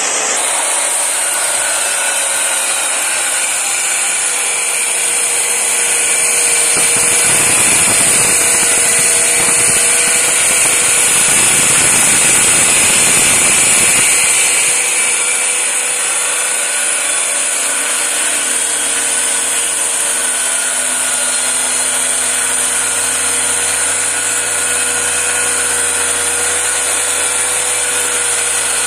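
DeWalt handheld circular saw with an MDF blade running at full speed and cutting through an MDF sheet along a clamped aluminium guide, a steady high motor whine over the cutting noise. The cutting noise grows louder about six seconds in and eases back around fourteen seconds.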